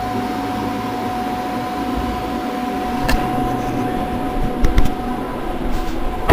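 Steady hum of a running machine such as a shop fan or heater, holding an even tone, with a sharp click about three seconds in and a few light knocks near the end.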